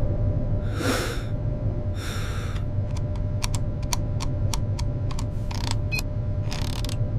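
Spaceship cockpit sound effects: a steady low hum, with short hisses about one and two seconds in, then a quick run of sharp clicks like switches or keys being pressed on a control panel, and more hisses near the end.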